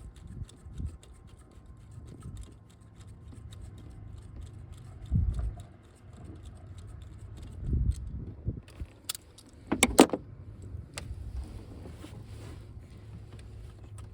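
Hand tools with socket extensions clinking and knocking against metal while the 7 mm bolt holding a coil-on-plug is worked loose. Scattered light ticks, a couple of dull thumps, and a sharp metallic clatter of clicks about ten seconds in, the loudest moment.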